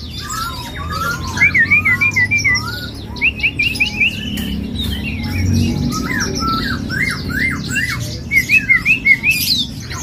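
Caged cucak ijo (green leafbird) in full song: repeated bursts of quick, sliding whistled notes, four or five runs of them, over other birds chirping and a low background murmur.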